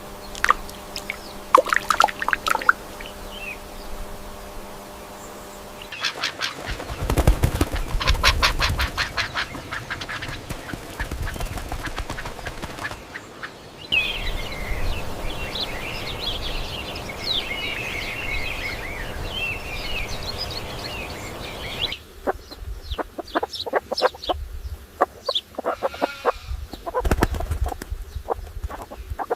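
Bird and fowl sounds in a run of spliced clips that change abruptly about every eight seconds: scattered calls, a stretch of rapid ticking over a low rumble, and dense high twittering.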